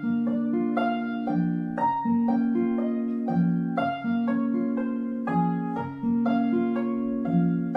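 Instrumental background music: a slow melody of plucked, ringing notes over held lower notes.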